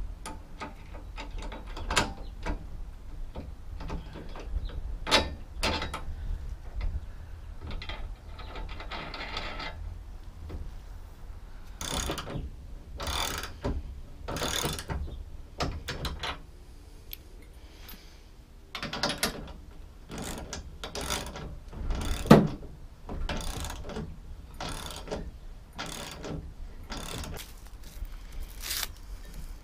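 Hand ratchet wrench clicking in repeated bursts as the bolts of a steel spare wheel carrier's mounts are tightened, with tool-on-metal clicks and knocks between. Plastic wrap crinkles near the end.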